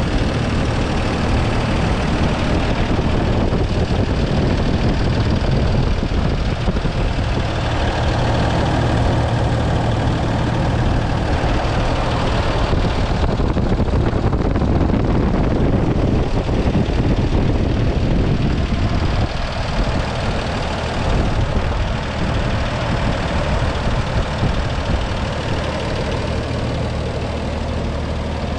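1980 Toyota Land Cruiser's 4.2-litre 2F straight-six petrol engine idling steadily, a couple of minutes after a cold start, heard up close from the open engine bay.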